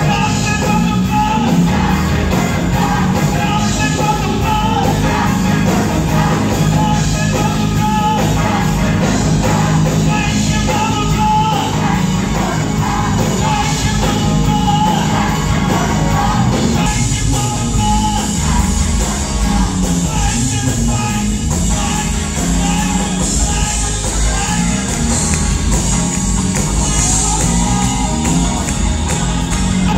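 Gospel choir of men's and women's voices singing with a live band, amplified through microphones and stage speakers, loud and steady throughout.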